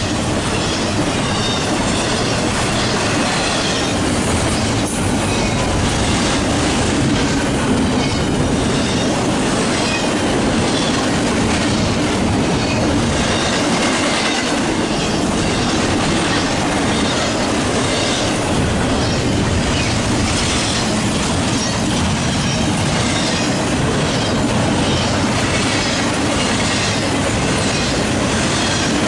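Intermodal freight train's well cars rolling past at speed: a steady loud rush of steel wheels on rail with a regular clickety-clack over the rail joints and some high wheel squeal.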